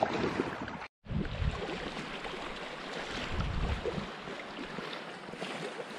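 Choppy lake water lapping against a rocky shore in the wind, with wind buffeting the microphone as a low rumble at first. The sound drops out for an instant about a second in, then the water carries on with occasional low gusts.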